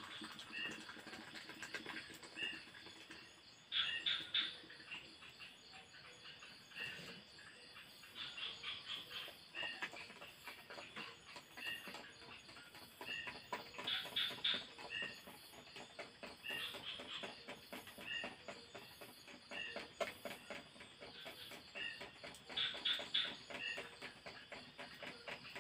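Forest creatures calling in the dark: a short two-note chirp repeats about once a second, and every few seconds a brief burst of rapid, high trilling stands out above it.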